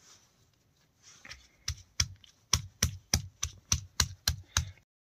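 Stone pestle pounding chutney greens and garlic against a stone, a steady run of knocks about four a second that begins softly about a second and a half in: the first, lighter pounding before full grinding.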